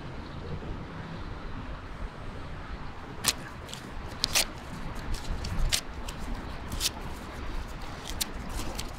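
Steady low outdoor rumble. From about three seconds in, an irregular string of sharp clicks and rustles comes from small objects being handled.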